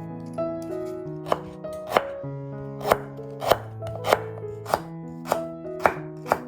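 Music of held keyboard notes, with a sharp knock about every half second starting about a second in.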